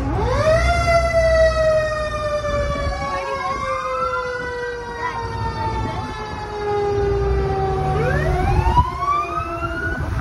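Fire truck siren wailing. It winds up sharply, then falls slowly in pitch, while a second siren sweep rises over it twice, all above the truck's low engine rumble.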